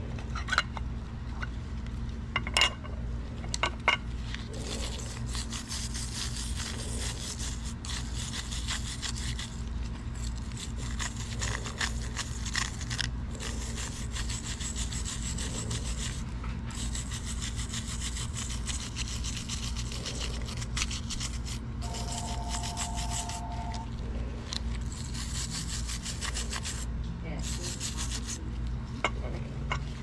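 Rapid back-and-forth scraping strokes, in runs of a few seconds with short pauses, as thick old paint is worked off antique mortise lock hardware, over a steady low hum.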